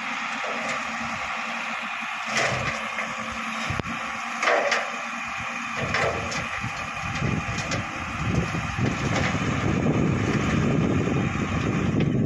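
Shantui crawler bulldozer's diesel engine running, with several sharp knocks in the first half; from about eight seconds in the deep rumble grows louder.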